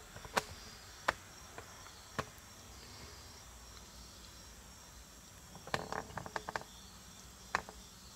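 Quiet shop background hum with scattered light clicks and taps: single ones in the first couple of seconds, a quick cluster of them about six seconds in, and another near the end.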